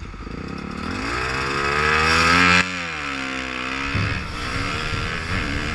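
Dirt bike engine accelerating hard off a race start. Its note climbs for about two seconds, drops abruptly and runs lower, then turns into a rougher, less even noise near the end.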